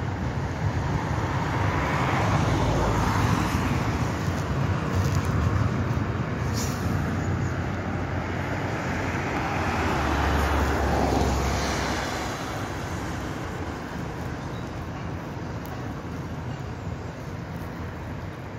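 Loaded biomass hopper wagons rolling slowly along the track, a steady rumble of wheels on rails. It swells about two seconds in and again about ten seconds in, then eases off toward the end.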